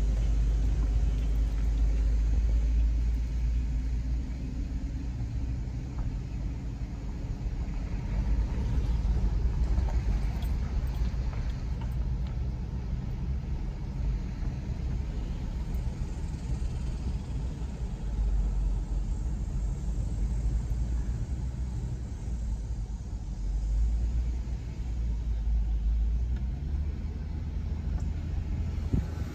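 Low, steady rumble inside a car's cabin as it drives slowly, the engine and road noise heard through the body.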